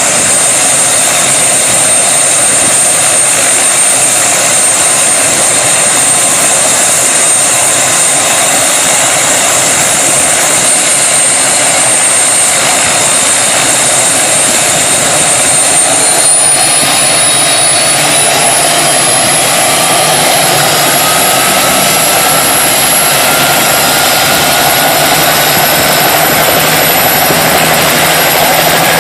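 Helicopter running, a loud steady wash of engine and rotor noise with a high turbine whine. About halfway through, the whine shifts upward in pitch, and a fainter tone climbs slowly after it.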